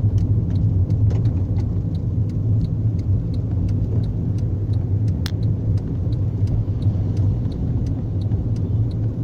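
Car engine of a 'motor buldog' vehicle running steadily while being driven, with a low, even hum and faint light clicks throughout.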